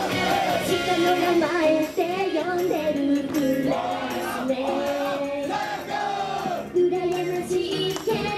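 Female J-pop idol group singing together with handheld microphones over a pop backing track, played through the stage's PA speakers.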